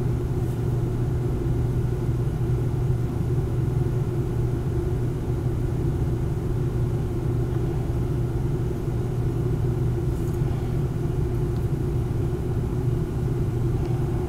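Steady low hum, with a few faint ticks.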